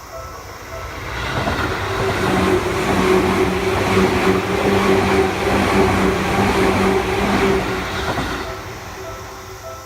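Seibu Shinjuku Line electric train passing through a level crossing: its running noise swells over a couple of seconds, stays loud with a steady low hum for several seconds, then fades. The crossing's warning bell rings about twice a second at the start and again near the end.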